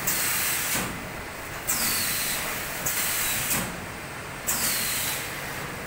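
Automatic L-bar shrink-film sealer cycling, with a sharp hiss of released air each time its pneumatic cylinders work the sealing frame. The hisses come about five times, each opening with a click, over a steady low machine hum.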